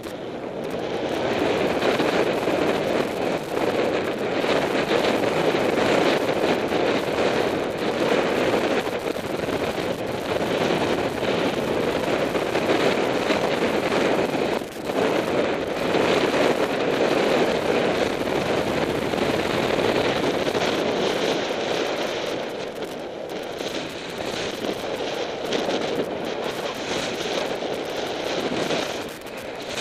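Cyclocross bike ridden fast over bumpy grass: a continuous rattling clatter of the bike and mount over rough ground, with wind rushing past, easing a little in the last few seconds.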